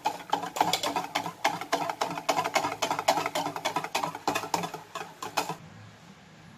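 Wire whisk beating a liquid batter in a stainless steel bowl: a fast, rhythmic clatter of the wires against the metal, about six strokes a second, stopping near the end.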